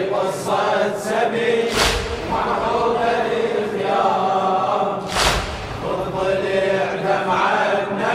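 Crowd of male mourners chanting a latmiya refrain in unison, with a loud unison chest-beating thud twice, about every three and a half seconds.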